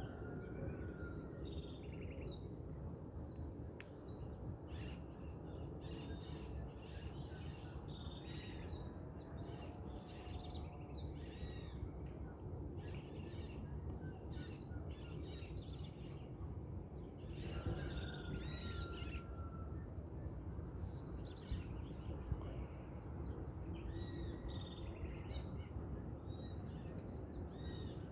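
Dawn chorus of many birds singing and calling over one another in quick, overlapping chirps and warbles, with a few longer whistled notes, over a steady low rumble.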